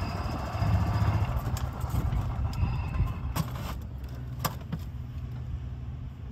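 Golf cart running as it moves slowly over sand, a steady low rumble with a couple of sharp knocks or rattles about three and a half and four and a half seconds in.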